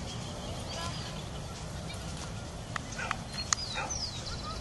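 Steady low wind rumble on the microphone, with high chirping and whistling bird calls over it and a few short sharp sounds about three seconds in.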